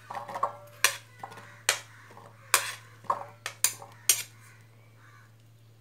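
Steel spoon clinking against a ceramic bowl and a plate as cut apple pieces are scooped into the bowl, about six sharp clinks in the first four seconds.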